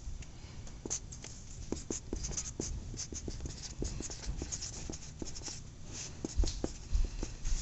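Felt-tip marker writing on a smooth surface: a quick run of short squeaks and scratches, stroke after stroke, with a couple of louder low bumps about six and seven seconds in.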